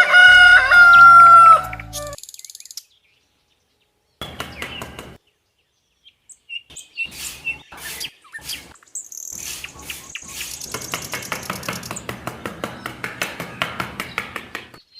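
A rooster crows once, loudly, with a long held note. After a pause come quieter scattered clicks and scraping, then a quick, even ticking that runs to the end.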